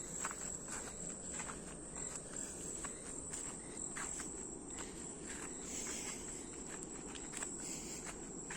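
Insects buzzing in one steady high note, with footsteps on a forest trail making irregular crackles underneath.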